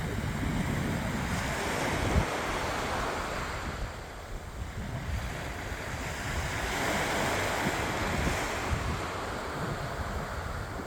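Sea surf breaking and washing ashore in two swells, rising, easing about halfway through, then rising again, with wind buffeting the microphone.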